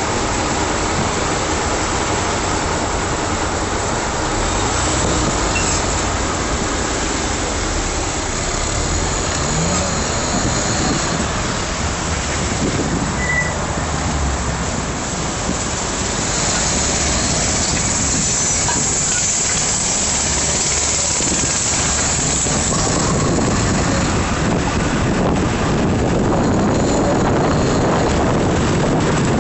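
Steady rush of wind on the microphone of an e-bike riding through slow city traffic, mixed with the running of the cars and bus around it.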